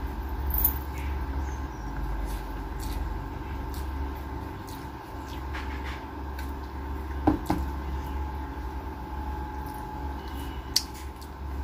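Fingers squishing and mixing cooked rice on a plastic plate, with many small wet clicks and a few sharper knocks, over a steady low hum.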